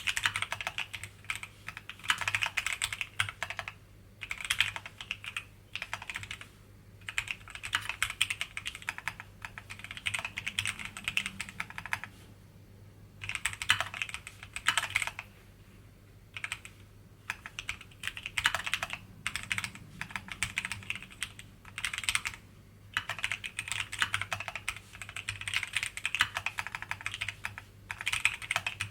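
Typing on a Keychron Q60 mechanical keyboard: runs of fast keystroke clacks broken by short pauses, roughly every few seconds.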